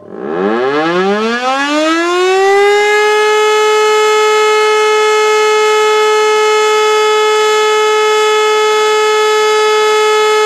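E57 electromechanical high-mast siren starting up: its tone sweeps steeply upward over about two and a half seconds, then holds a steady, loud wail. This is the start of the German fire-alarm (Feueralarm) test signal.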